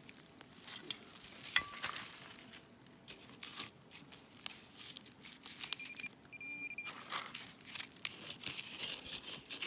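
Hand digger stabbing and scraping into sandy soil and leaf litter: irregular crunches and scrapes, with a sharp knock about one and a half seconds in. A short high electronic beep from the metal detector sounds about six seconds in.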